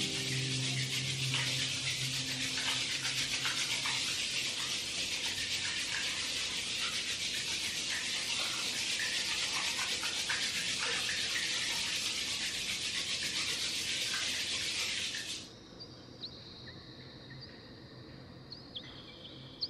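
Hands rubbing palm against palm briskly and steadily, a dry scrubbing hiss, which stops suddenly about fifteen seconds in. This is the rubbing that warms the palms before they are cupped over the eyes.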